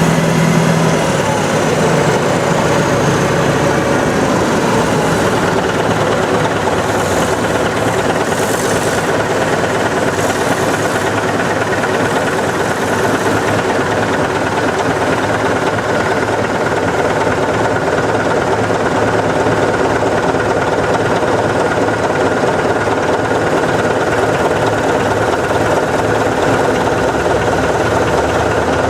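Heavy Caterpillar earthmoving diesel engines running steadily. The engine note falls in the first couple of seconds, then holds even.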